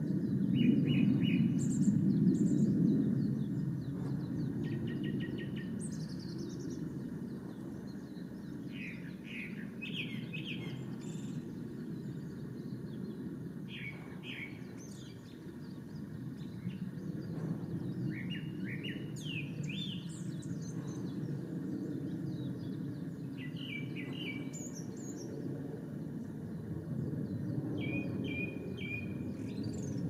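Male Japanese thrush singing: short, varied phrases of clear whistled and quickly repeated notes, one every few seconds, over a steady low rumble.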